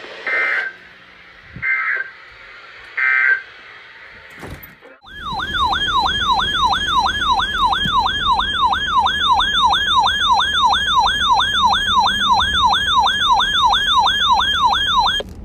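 Three short bursts of EAS digital data tones, the end-of-message code that closes the tornado warning, then an electronic yelp siren sweeping rapidly up and down, about two to three times a second, for about ten seconds before cutting off abruptly.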